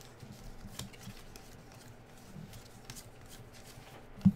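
Faint handling of a stack of trading cards: light ticks and rustles as the cards are slid from the front to the back of the pack, with one short low bump near the end.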